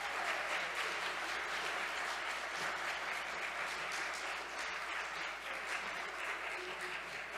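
Congregation applauding steadily in a large room, a dense, even clapping.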